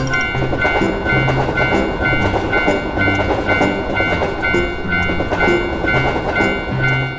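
Railroad crossing alarm ringing in an even two-tone pulse, about two dings a second, over a train's rumble and clatter as it passes, with background music.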